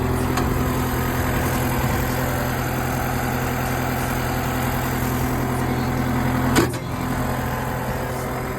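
Sany skid steer's Yanmar diesel engine idling steadily. About six and a half seconds in there is a single sharp thump, after which the engine sounds a little quieter.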